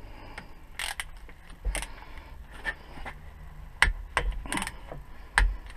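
Socket ratchet clicking, with irregular sharp metallic clicks and knocks of hand tools; the loudest clicks come about four seconds in and again near the end.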